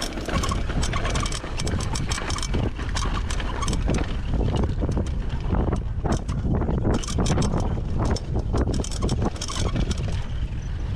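Mountain bike running fast down a rough trail: wind buffets the rider's camera microphone in a steady low rumble, over constant quick clicks and rattles from the tyres and bike bouncing over the ground.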